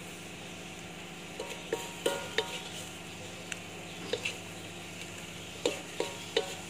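Wooden spatula stirring and scraping sambal chilli paste frying in a metal wok, with irregular knocks of the spatula against the pan that ring briefly. A low sizzle runs underneath.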